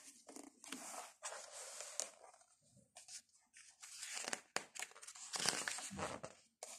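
Paper pages of a picture book being handled and turned: a series of soft, irregular rustles and crinkles, strongest in the second half as the page flips over.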